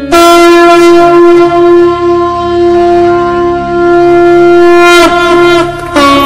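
Conch shell (shankha) blown in one long, steady, loud note lasting about five seconds, then a second, shorter note.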